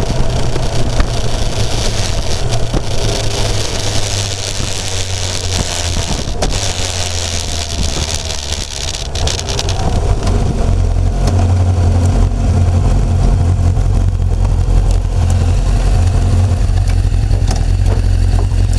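Kawasaki inline-four motorcycle engine running under way, heard from an onboard camera with wind rush over the microphone. The wind hiss is strongest in the first half; a little past halfway the sound dips briefly, and then the engine's low drone comes up louder.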